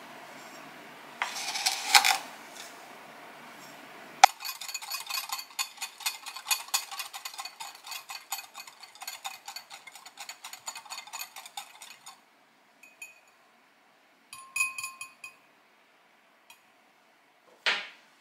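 Wire balloon whisk beating egg yolks and sugar in a glass bowl: rapid, fast-repeating clinking of the wires against the glass for about eight seconds, then a few short bursts of taps. Near the start there is a brief rush of sugar pouring into the bowl, and near the end a single sharp knock.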